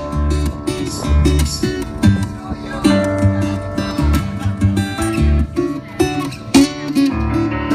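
A rock band playing live: strummed acoustic guitar with electric guitar, bass and drums keeping a steady beat.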